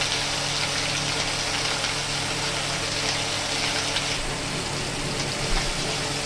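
Spice paste sizzling and crackling steadily in hot oil in a kadai, over a steady low hum.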